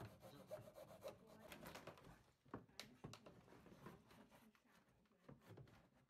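Faint rasping of a hand saw cutting into the plastic spin tub of a twin-tub washing machine, with scattered sharp clicks and knocks of the plastic.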